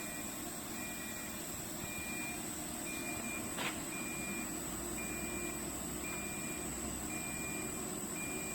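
Electronic warning beeper sounding short high beeps about once a second, over a steady hiss with a thin high whine. A single sharp click comes about three and a half seconds in.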